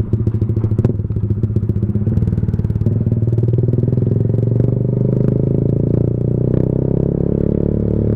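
Motorcycle engine running through a Leo Vince GP Corsa Shorty carbon fiber exhaust fitted as an open pipe without its silencer insert, a loud, steady exhaust note while riding.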